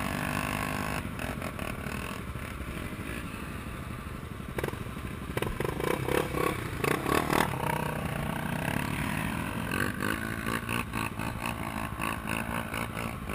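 Trail motorcycles idling, with a brief rise in engine sound around the middle. Close clicks and scrapes sound over them for a few seconds halfway through.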